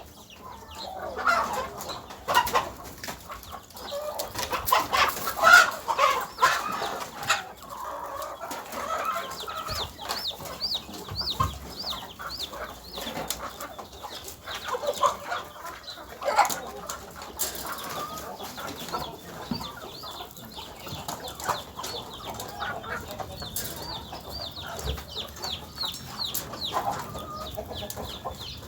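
Chickens clucking, with many sharp clicks and knocks, loudest in the first eight seconds. Runs of short, high chirps come in twice, from about ten seconds in and again near the end.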